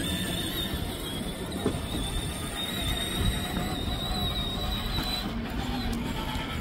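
A 12-volt ride-on toy tractor driving along: its electric drive motor and gearbox give a thin high whine that rises slightly in pitch, over the rumble of its plastic wheels rolling on the ground.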